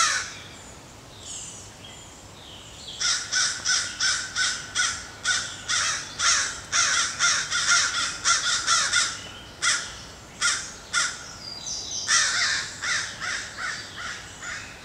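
Crow cawing in long, rapid series of short harsh calls, about two or three a second. The calls start about three seconds in, pause briefly after about eleven seconds, then resume.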